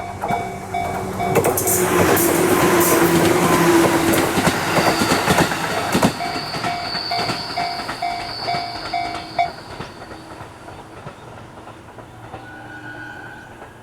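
A train passing over a level crossing, its wheels clacking over the rail joints. The passage is loudest from about 1.5 to 6 seconds and then fades. The crossing's warning bell rings in even pulses throughout and stops near 9.5 seconds.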